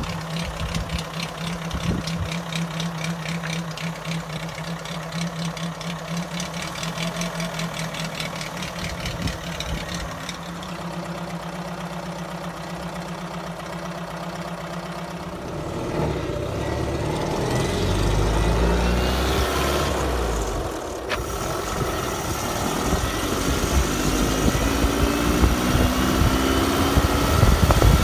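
Engine of a 1929 Morris Minor Semi-Sports idling steadily. About halfway through it pulls away, getting louder with its note rising as the car gathers speed.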